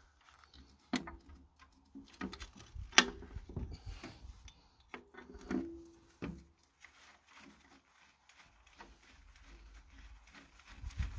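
Steel seat rails and bracket of an LS tractor's seat mount being handled and set in place by hand: scattered metal knocks, clanks and scraping, the sharpest about three seconds in, with one clank that rings briefly about halfway.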